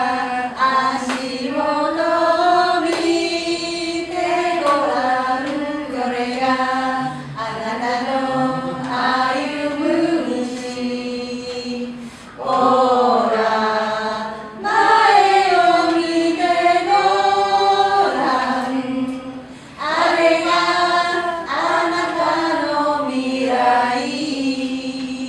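A woman singing a song unaccompanied, in long held notes that glide up and down, with a few short breaks for breath.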